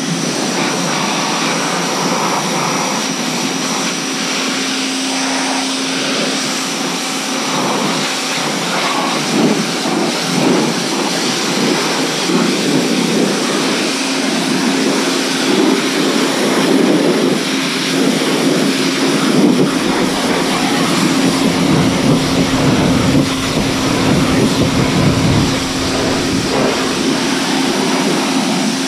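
Electric pressure washer starting as the trigger is pulled, then running steadily: the motor and pump hum at an even pitch under the hiss of the water jet spraying the ATV. A deeper rumble joins about twenty seconds in.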